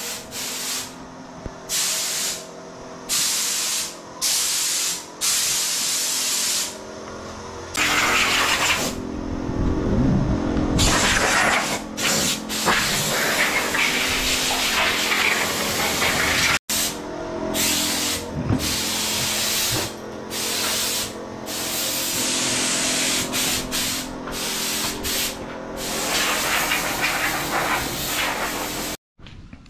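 Repeated bursts of spraying hiss, some short and some lasting several seconds, over a steady machine hum.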